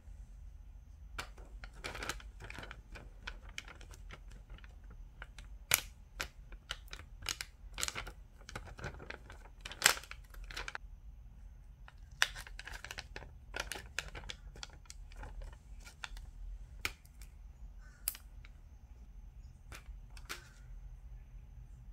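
Thin clear plastic sheet crinkling and clicking in the hands as iridescent aurora nail-art film pieces are peeled off it: irregular sharp crackles, some in quick clusters, over a low steady hum.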